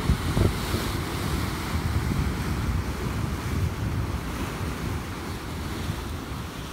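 Rough sea surf breaking and washing over shoreline rocks in a continuous roar of foam, with wind gusting on the microphone underneath.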